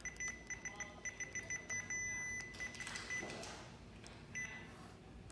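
Beeper of a Kyocera TASKalfa 3212i copier's touch-screen control panel: a fast run of short beeps on one pitch, about five a second, then a longer held beep about two seconds in and a few more short ones. A brief burst of noise comes around three seconds in, and a single beep comes near the end.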